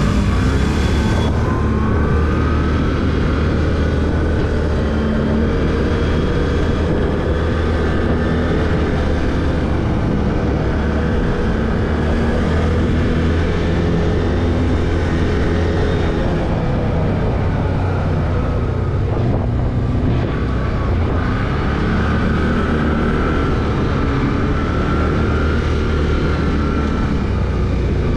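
ATV engine running under way, its pitch slowly rising and falling with the throttle over a steady low rumble.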